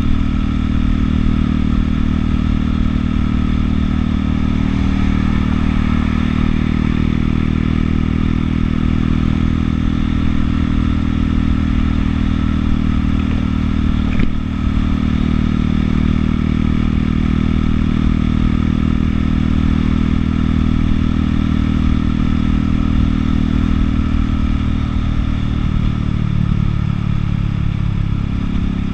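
A Buell motorcycle's Harley-derived engine running steadily at cruising speed. The engine note briefly dips about halfway through and changes pitch near the end.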